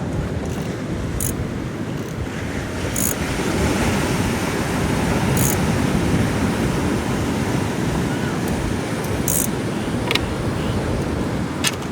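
Wind on the microphone over breaking surf: a steady rushing noise that swells through the middle, with a few sharp ticks.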